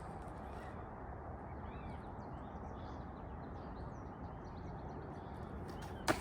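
Birds chirping in quick short calls over a steady outdoor background hiss, with one sharp click or knock near the end.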